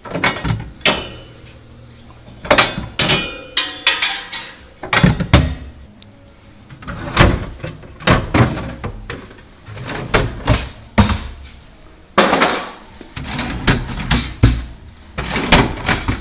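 Irregular knocking and clattering as a drawer frame and other interior parts are worked loose and lifted out of a Sub-Zero refrigerator, a sharp knock every half second to second, some with a short ring.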